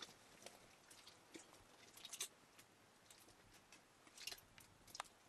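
Faint handling noises: scattered soft clicks and rustles from hands working a sack and kneading butter over a metal pot, strongest about two seconds in and again around four to five seconds in.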